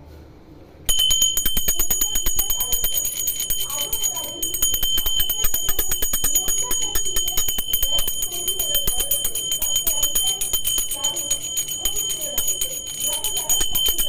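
A puja hand bell (ghanti) rung rapidly and without a break, starting suddenly about a second in: a fast clatter of clapper strikes under one clear, steady ringing tone. A voice is heard underneath.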